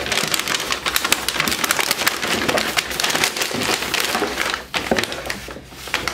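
Tissue paper being rustled and crinkled as hands fold it back, a dense crackle that thins out near the end.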